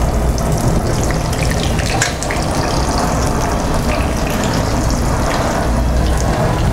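Breaded green beans frying in hot oil in a frying pan: a steady sizzle with many small crackling pops, over a steady low hum.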